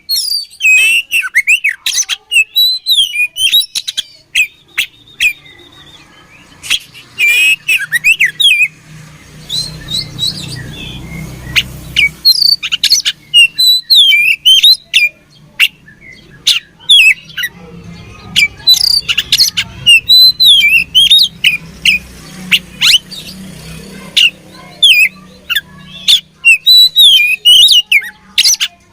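Oriental magpie-robin (kacer) singing in fast bursts of sharp chirps and sweeping whistled notes, with short pauses between the bursts.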